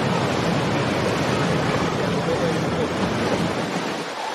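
Boat engines running with a low rumble over the wash of water from the boats' wakes; the engine rumble fades out near the end, leaving the water and a lighter hiss.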